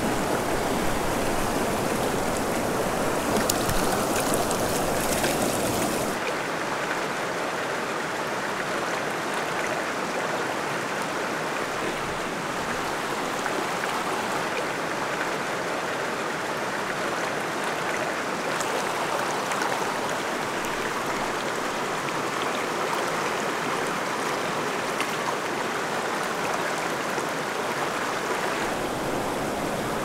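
Steady rush of a canyon trout river's flowing water. About six seconds in, the sound abruptly becomes a little quieter and thinner.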